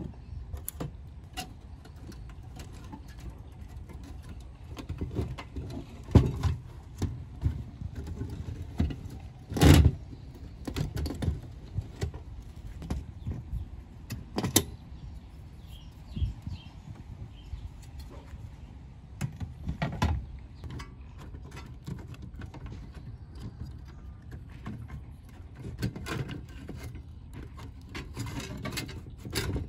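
Scattered clicks, rattles and metallic knocks from an old 1980s amplifier being taken apart by hand: screws, the sheet-metal case and front frame, and the circuit board handled and set down on a wooden bench. The loudest knock comes about ten seconds in.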